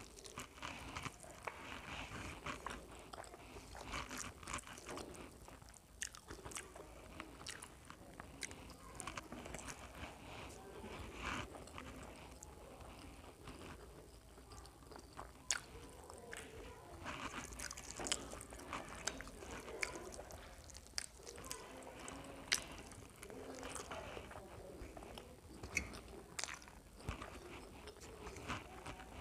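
A person chewing mouthfuls of rice and fried egg while fingers mix rice on a steel plate, with a scattering of short sharp clicks.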